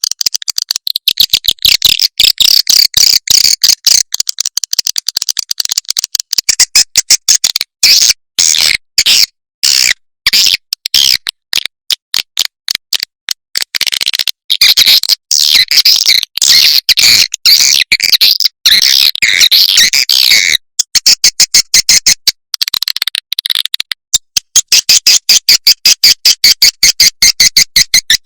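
Swiftlets chirping in a dense, fast train of short high chirps, played as a swiftlet-house lure call to draw the birds in and get them to roost. The chirping breaks off briefly a couple of times about three-quarters of the way through.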